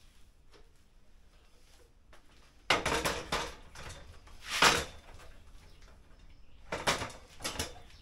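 Several sudden clattering knocks, as of hard objects being handled, with the loudest about four and a half seconds in and another short group near the end.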